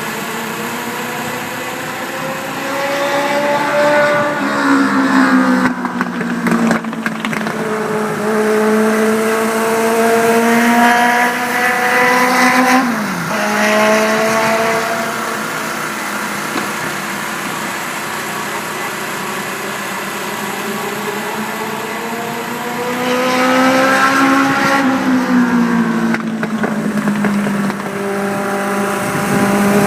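Race car engine running hard at practice pace, its revs climbing for several seconds and then dropping off sharply as the throttle is lifted, three times over.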